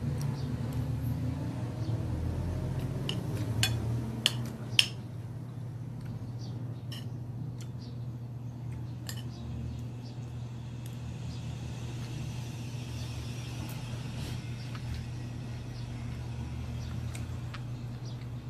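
Fork and spoon clinking against a plate while someone eats, with three sharp clinks about four seconds in and lighter ticks after, over a steady low hum.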